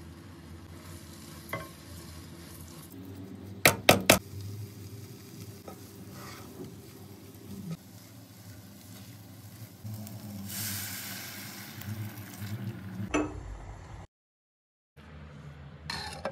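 Wooden spoon stirring bulgur and chopped çiriş greens in a hot enamel pot, with sizzling. About four seconds in come three sharp knocks, and later a stretch of hissing.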